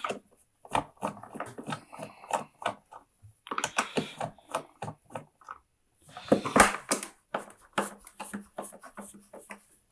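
Irregular clicks, knocks and scraping from tools and hard plastic being handled as the screws holding a Henry vacuum cleaner's top cover are undone, with two longer scrapes partway through.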